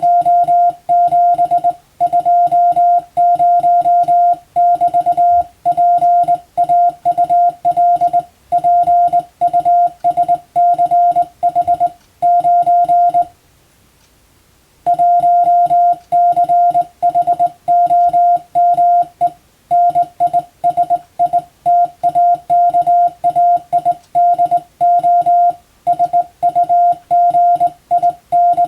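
Morse code sent as a single steady tone keyed on and off in dots, dashes and letter gaps, as in telegraph sending practice. It stops for about a second and a half just past the middle, then carries on.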